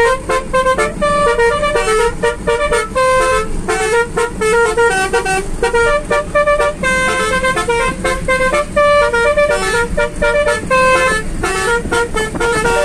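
Basuri musical air horn on a car playing a tune, one horn note after another in quick succession, over a steady road noise.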